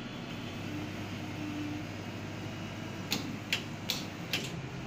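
Coffee vending machine running as it prepares a drink: a steady hum, with four sharp clicks about half a second apart near the end.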